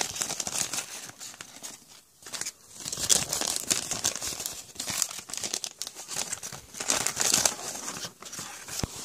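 Wax-paper wrapper of a 1989 Topps football pack crinkling as it is handled, in irregular crackly bursts with a brief lull about two seconds in.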